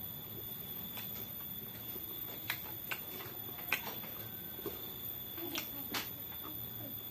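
A person eating and chewing fried food, with mouth noises and about half a dozen scattered sharp clicks.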